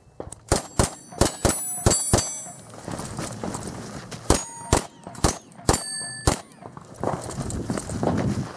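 Revolver shots at steel plate targets, most hits followed by the plates ringing. A quick string of six shots comes in under two seconds, then a pause of about two seconds, then six more shots.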